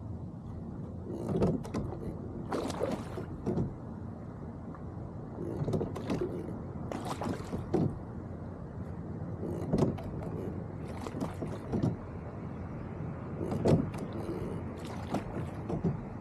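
Sculling oars working in the oarlocks of a sliding-seat rowboat under way. Each stroke brings a short knock-and-splash clatter, often doubled, about every two seconds, over a steady hiss of water and air.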